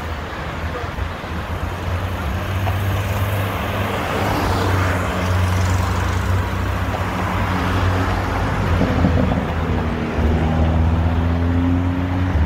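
Road traffic on a multi-lane city street: cars driving past in a steady rumble, with one engine's hum rising in pitch near the end.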